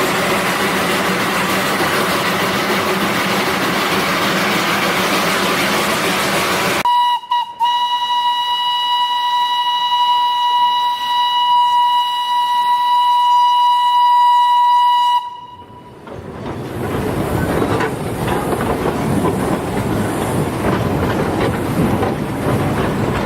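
Darjeeling toy train running with a steady rumbling hiss. About seven seconds in, a long single-pitched train whistle sounds for about eight seconds and stops sharply. The running noise then returns.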